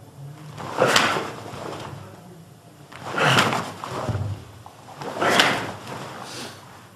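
Three sharp slapping snaps about two seconds apart: karate roundhouse kicks (mawashi-geri) striking a black belt held out as a target.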